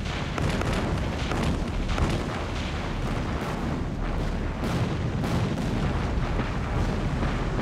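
Naval guns firing at night and shells exploding: a rapid series of booms, one or two a second, over a continuous heavy rumble.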